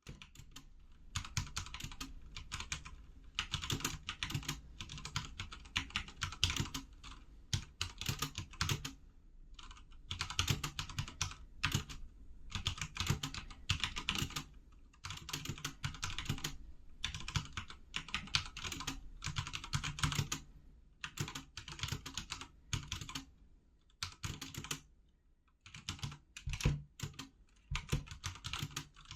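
Typing on a HyperX Alloy FPS Pro TKL mechanical keyboard with linear Cherry MX Red switches: fast runs of keystrokes, each key clacking as it bottoms out, broken by short pauses between bursts.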